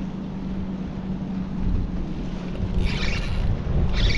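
Wind on the microphone and lapping water around a small boat, over a steady low hum. Near the end, two short, harsh bursts from the spinning reel as a fish strikes the lure and the rod is swept up in a hookset.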